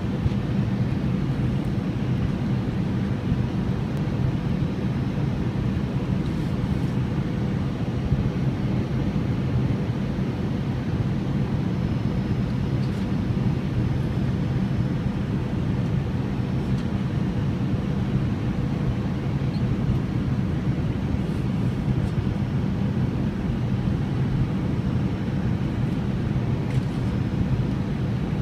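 Steady cabin drone inside an Airbus A321-100 descending on approach: engine and airflow noise heard from a seat beside the engine. It is a low, even hum with a faint steady tone above it.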